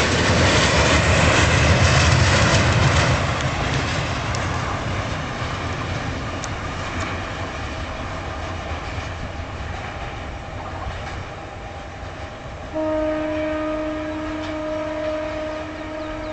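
Freight train wagons rolling past close by with wheel clatter, the noise fading as the train draws away. About three-quarters of the way through, a train horn sounds one long steady note that carries on to the end.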